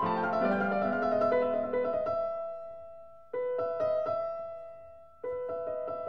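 Solo piano playing: a flowing run of notes, then held chords that are struck and left to die away, with new chords struck about three and five seconds in.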